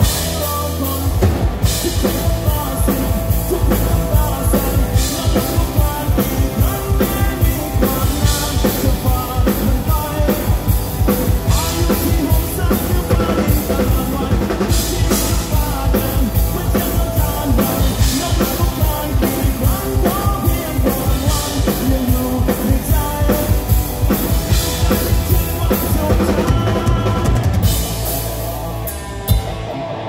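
Live rock band playing with a steady drum-kit beat under guitar and bass. The cymbals and drums fall away just before the end, leaving the guitar.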